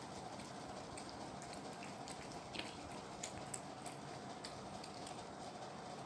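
Faint scattered clicks and ticks of cats licking and chewing wet food, over a steady low room hum.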